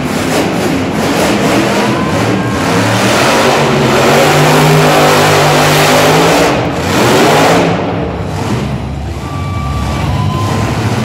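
Monster truck's supercharged V8 engine revving hard. It builds to its loudest about halfway through, drops for a moment, takes another short burst of throttle, then eases back to a lower run.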